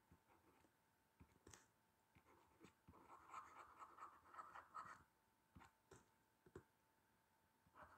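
Faint scratching of a pen writing on a textbook page, with soft ticks of the pen tip, heaviest from about three to five seconds in.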